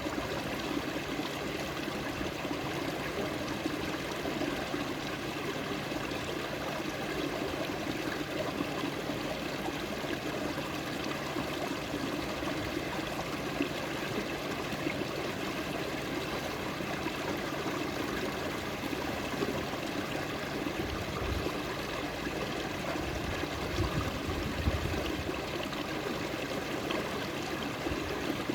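Water in a stream flowing and trickling steadily. A few brief low rumbles come about three-quarters of the way through.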